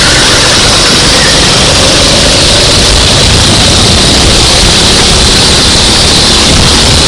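Racing go-kart engine running hard at speed, recorded so loud that it fills the sound with a dense, distorted noise, its pitch slowly rising.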